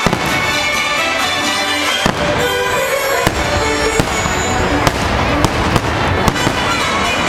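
Fireworks bursting in a series of sharp bangs, roughly one a second, over the show's music.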